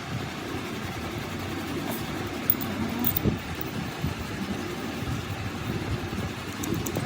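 Machinery running steadily with a low rumble, broken by scattered irregular knocks.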